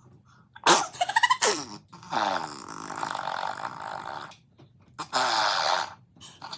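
A baby farting: a sputtering burst about a second in, then a long buzzy fart of about two seconds, and a shorter one about five seconds in.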